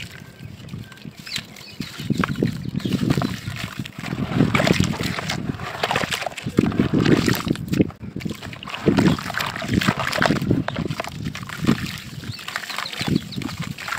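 Hands crumbling and squeezing lumps of wet grey sandy mud in a bucket of muddy water: irregular sloshing and splashing mixed with gritty crumbling.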